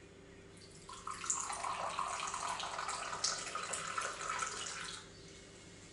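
Tea poured in a thin stream from a height into a glass cup on a saucer, splashing and filling for about four seconds before stopping abruptly.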